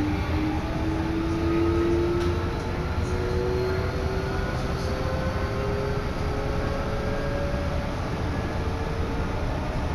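Odakyu Tama Line electric train heard from inside the carriage as it pulls away and picks up speed. The traction motors whine, rising slowly in pitch over a steady low running rumble.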